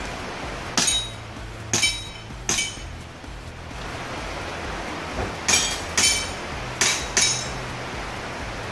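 Airsoft pistol firing seven shots in a practical-shooting drill, each a sharp crack with a short metallic ring: three shots about a second apart, a pause of about three seconds, then four quicker shots.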